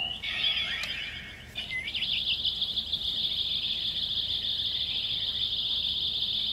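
Electronic sound effect from the Ultraman Blazer Blazer Brace toy's small speaker as a Blazer Stone is read: a shimmering whoosh, then a chirp about a second and a half in, leading into a steady, high, sparkling electronic tone.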